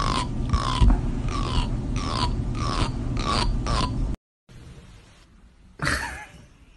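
A cat making a rhythmic series of short, slightly falling chirps, about one and a half a second, over a steady low hum; the chirps stop abruptly about four seconds in. Near six seconds there is a single falling call.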